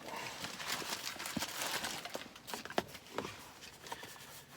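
Rustling and handling noise with a few sharp clicks and knocks, from gear being moved about by hand.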